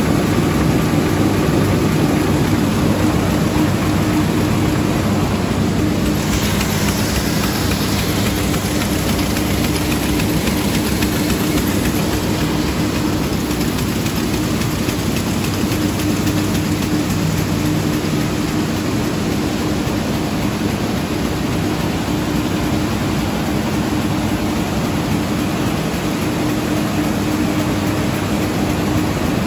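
Steady machinery hum in a printing hall, with a few low steady tones. A hiss of air comes in about six seconds in and fades over the next few seconds.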